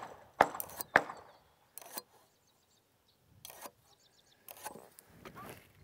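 Scattered light clicks and taps of a speed square being set and slid on a pine board, with faint pencil scratching as a line is marked.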